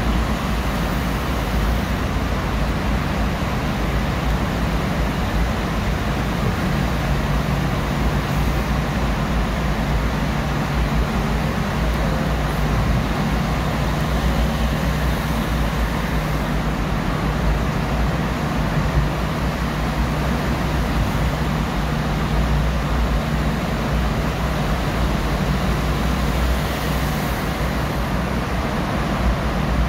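Steady road noise of a car driving through a road tunnel, heard from inside the cabin: an even, unbroken rumble, heaviest in the low end.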